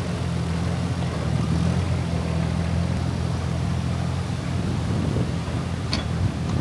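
An engine running steadily at a constant speed, with one short sharp click about six seconds in.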